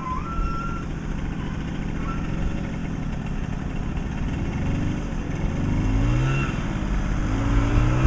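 Flatbed truck's engine running as it drives slowly through floodwater covering the road, over a steady rush of noise. Near the end a pitched sound rises and falls twice.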